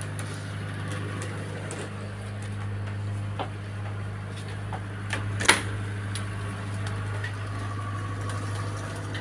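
Steady low hum of a sailing yacht's onboard machinery heard inside the cabin. A sharp knock comes about five and a half seconds in, with a couple of fainter clicks shortly before it.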